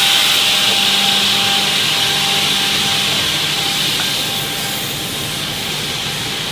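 Advantage 320 edgebanding machine running as it machines a 2 mm edge band on a panel: steady motor hum with a loud high hiss from the cutting units, easing off about four and a half seconds in.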